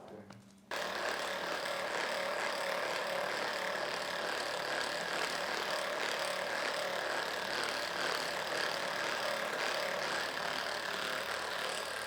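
A steady machine-like hum and hiss that starts abruptly under a second in and holds at an even level.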